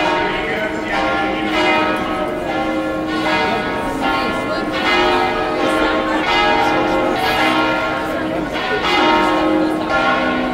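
Church bells ringing in a continuous peal, a new stroke a little more often than once a second, each tone ringing on over the next.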